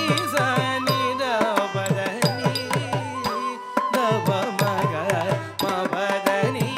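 Live Carnatic ensemble accompanying a Bharatanatyam jatiswaram: regular mridangam strokes, about three a second, under melodic lines of voice, flute and violin.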